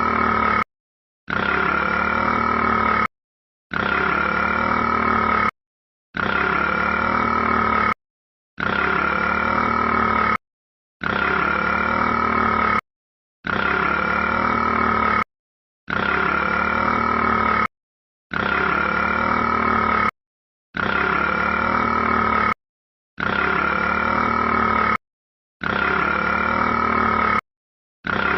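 A short recorded clip of a rat's burp-like grunt played on a loop. Each play lasts just under two seconds and is followed by a short silence, repeating about every two and a half seconds.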